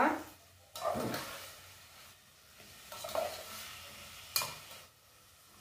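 Spoon stirring and scraping in a large pot as chopped tomato, onion and bell pepper sizzle in oil, with one sharp clink of the spoon on the pot about four and a half seconds in.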